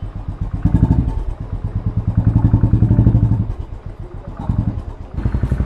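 Royal Enfield Bullet 500 EFI's single-cylinder engine running, freshly rebuilt after half-engine work. Its note rises and eases with the throttle twice, dropping about four seconds in before picking up again.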